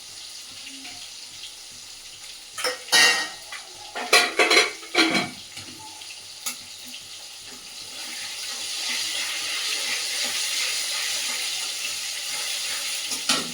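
Kitchen pots and utensils knocking and clattering in a quick cluster, then a steady hiss that swells in about halfway through and holds.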